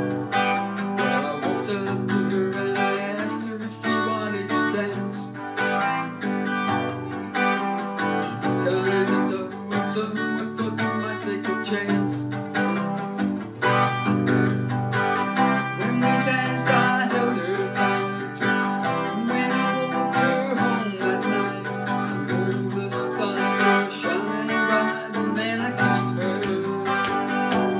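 Semi-hollow electric guitar strummed steadily, playing the chords of a 1960s pop song in the key of G.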